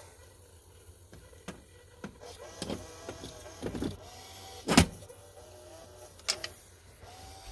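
Small electric motor of a homemade carbon arc lamp whirring in short runs, its pitch rising and falling as it drives the lower electrode's carriage back and forth to hold the arc current. Sharp pops and crackles from the carbon arc break in several times, the loudest just under five seconds in; the arc is still unsteady before warming up.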